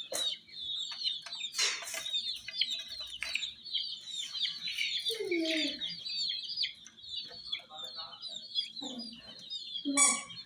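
A brood of baby chicks peeping constantly, many high, short chirps overlapping. A few lower, louder calls cut through about halfway and again near the end.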